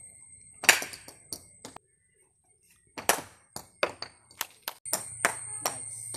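Cricket bat striking a ball with sharp knocks: one loud strike a little under a second in, then, after a short break in the sound, another about three seconds in, followed by a quick run of lighter taps and knocks.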